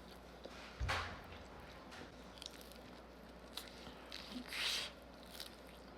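Close-miked chewing of sushi, with scattered wet mouth clicks and crunches. There is a louder bite with a low thump about a second in and a longer crunch between four and five seconds.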